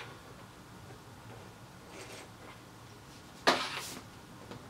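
Quiet room tone, broken about three and a half seconds in by one sharp clack with a short rustling tail as small electronic parts are handled on the work mat.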